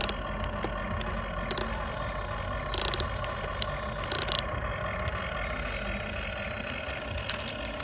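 Huina 1550 RC excavator's small electric gear motors whining steadily as the boom, arm and bucket move, with two short scraping noises about three and four seconds in as the bucket works the dirt.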